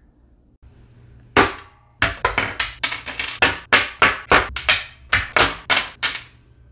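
Electronic parts set down one by one on a wooden tabletop: a single sharp knock a little over a second in, then a quick run of knocks at about four a second.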